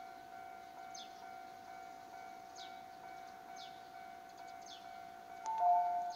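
A steady electronic tone sounds throughout. About five and a half seconds in, an alternating two-note chime starts up over it. A few faint, short high chirps come and go.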